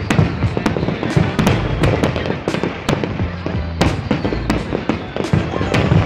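Aerial fireworks display: shells bursting in a dense, irregular run of sharp bangs and crackles, several a second.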